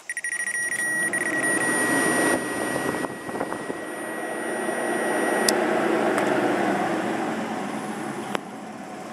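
1984 Corvette's electric radiator cooling fan running with a steady rush of air and a high whine over it. The whine cuts off suddenly about five and a half seconds in, and the air noise then slowly fades as the fan winds down.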